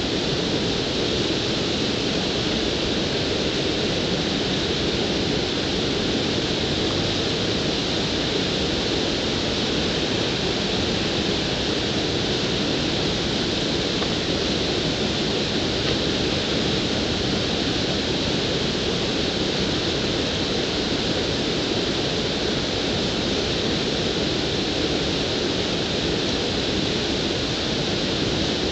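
Water spilling over a low concrete weir in a creek, a steady rushing that does not change.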